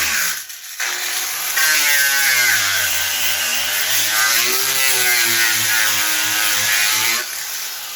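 Bauer cordless power drill driving a fastener into the bench's wood: a short burst, then a run of about six seconds with the motor's pitch sagging under load and recovering.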